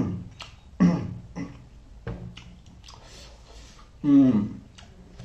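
Close-up eating sounds of a person eating prawns: wet mouth noises and short clicks, with three brief wordless vocal sounds that fall in pitch, near the start, about a second in and about four seconds in.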